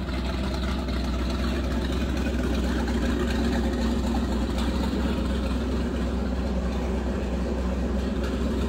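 Big-block V8 inboard boat engine idling steadily, low and even, with no revving.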